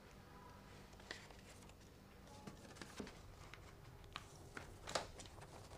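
Near silence: quiet room tone with scattered faint taps and rustles of paper being handled, the loudest about five seconds in.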